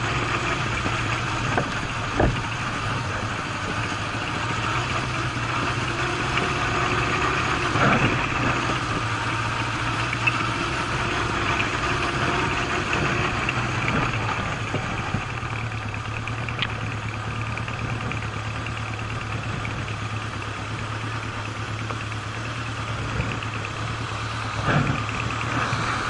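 Honda CB750 motorcycle engine running steadily at low revs while the bike rolls slowly down a rough, broken forest track, with a few short knocks as it jolts over the uneven paving.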